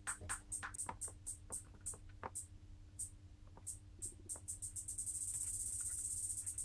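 Roland CR-78 drum machine playing a rhythm pattern: quick, evenly spaced hi-hat ticks with a few faint drum hits, thinning out in the middle. From about five seconds in, a steady hiss joins the ticks.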